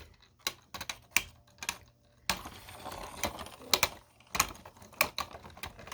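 Two 3D-printed plastic Beyblade spinning tops clashing in a plastic stadium: rapid, irregular sharp clacks as they collide, with a steadier rasping stretch of the tops grinding against each other a little after two seconds in.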